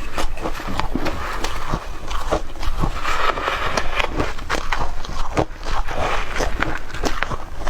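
Shaved ice being chewed close up: a steady run of crisp crunches.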